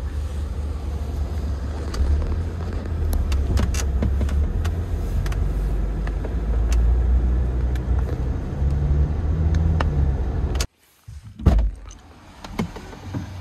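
Car cabin noise while driving: a steady low rumble of engine and tyres with a few faint clicks. It cuts off abruptly about ten and a half seconds in, giving way to a much quieter stretch with a single thump.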